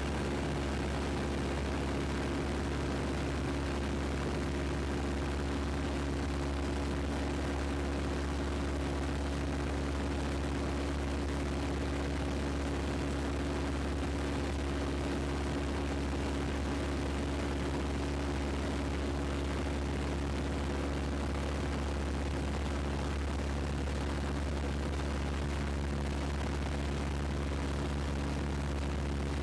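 Piper PA-17 Vagabond's piston engine and propeller running steadily in cruise, a constant low drone with a steady hum, heard from inside the small cabin.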